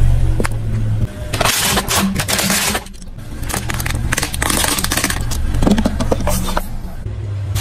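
Car tyre rolling onto and crushing plastic toys: two spells of crackling, crunching breakage of brittle plastic, over a low steady rumble from the car.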